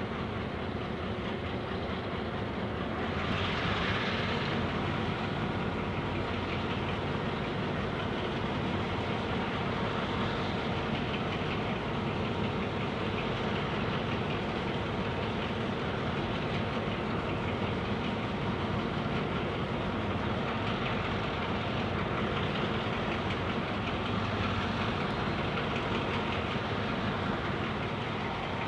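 Diesel-electric locomotive engine running steadily at the head of a loaded grain train as the train creeps slowly forward, with a brief hiss about three seconds in.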